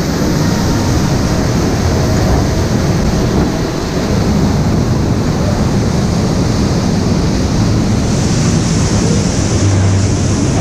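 Steady rushing noise of the mine-ride ore cars rolling along the track, mixed with the splashing of a rockwork waterfall.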